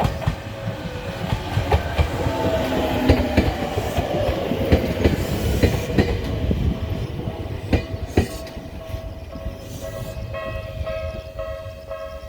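Bessho Line 1000-series two-car electric train passing over a level crossing, its wheels clicking and rumbling over the rail joints, the clicking dying away in the last few seconds. The crossing's warning bell rings on steadily throughout, and wind rumbles on the microphone.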